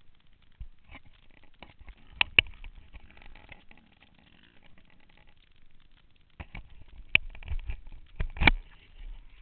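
Sharp knocks and rattles picked up by a helmet-mounted camera as a dirt bike jolts over a rutted forest trail. There are two loud knocks a little over two seconds in and a cluster of several more near the end, with no clear engine note between them.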